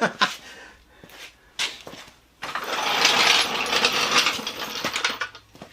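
A few clicks and knocks, then a small power tool runs with a rattling buzz for about three seconds and stops near the end, raising a jack under the motorcycle.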